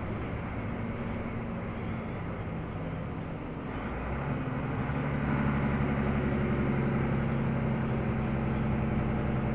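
Vehicle engine hum and tyre noise heard from inside the cab while the vehicle slows on a wet road. About four seconds in, the engine note changes and grows louder.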